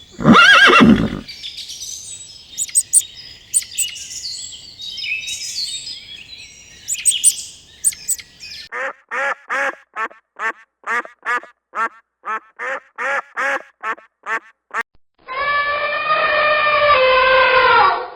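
A sequence of farm-animal calls: a brief loud call at the start, then high bird chirping for several seconds, then a duck quacking about a dozen times in an even run of roughly two quacks a second. Near the end comes one long, held call.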